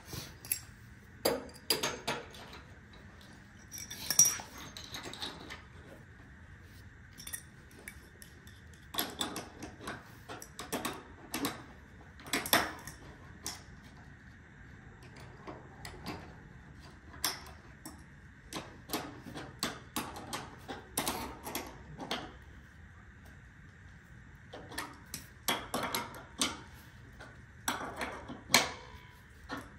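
Metal clinks and irregular clicks of a hand wrench turning and tightening a bolt that fixes a pipe rail to its metal bracket.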